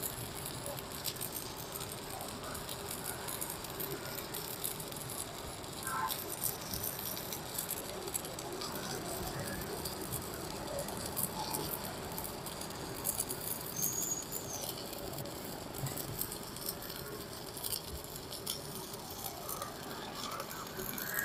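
Stick-welding arc from a JACPRO ARC200PRO inverter welder set at 150 A: a steady crackling sizzle as the electrode burns along the bead, with frequent sharp crackles from spatter.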